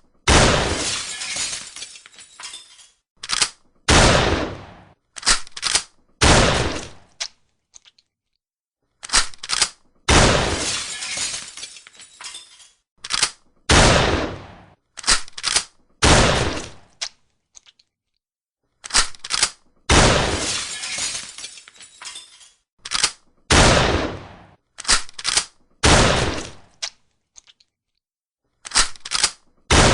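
Shotgun shots, each a sharp blast that rings out over a second or two, with short, sharp clicks of the action being worked and shells reloaded between them. The same run of about three shots and their clicks repeats every nine and a half seconds or so.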